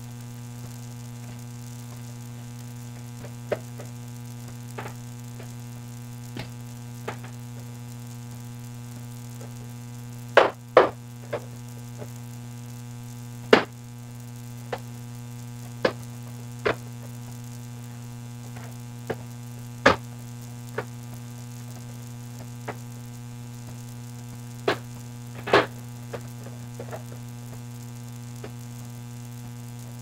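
Steady electrical hum, with scattered sharp clicks and taps of a screwdriver and fingers on the plastic underside of an Acer ES1-432 laptop as the service cover's screws are loosened and the cover is worked free.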